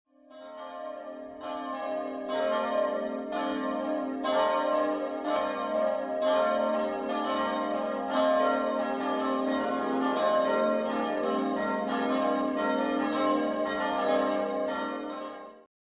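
Church bells ringing a peal, with many overlapping strokes that each ring on. The peal swells in over the first couple of seconds and cuts off suddenly near the end.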